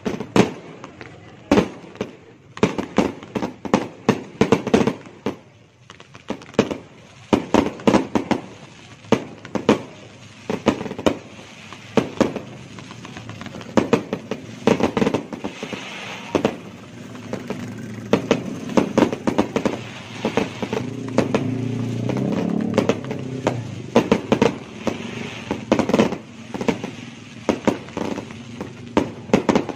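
A fireworks display: an irregular series of sharp bangs and pops from aerial shells and cakes, often several in quick succession. The firing grows denser and more continuous about two-thirds of the way through.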